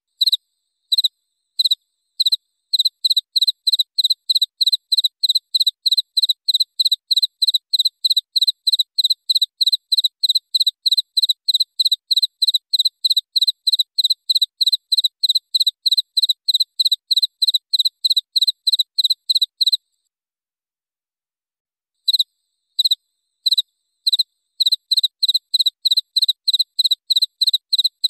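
Cricket chirping: a few spaced high chirps at first, then a steady run of about three chirps a second that breaks off about 20 seconds in and picks up again two seconds later.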